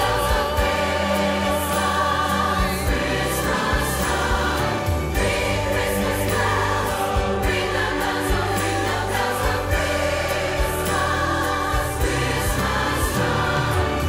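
Choir singing with vibrato over an orchestral accompaniment with a steady bass line.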